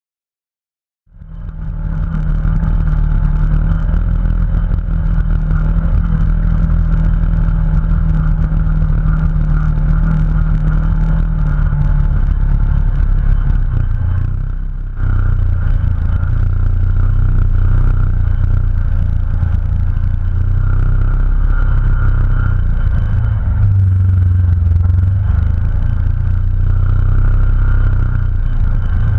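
Polaris RZR 900 XP side-by-side heard from on board on a rough track: the engine runs steadily under way, with the rattle and clatter of the machine over rocks. The sound cuts in abruptly about a second in and breaks off and resumes with a change about halfway through.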